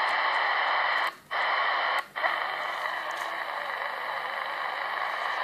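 CB transceiver's receiver hiss with the squelch open: steady static with a few faint whistles in it. The hiss cuts out briefly twice, about one and two seconds in, as the channel is stepped up.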